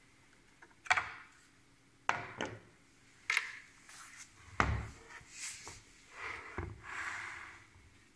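Hard parts and packaging being handled and set down during unpacking: about six knocks and clatters, the loudest about four and a half seconds in, with rubbing and sliding noises after it.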